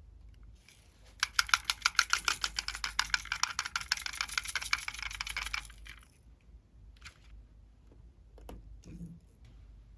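Glossy slime being squeezed and kneaded by hand, giving a fast run of sharp clicking pops, about eight a second, for some four seconds, then a few scattered pops.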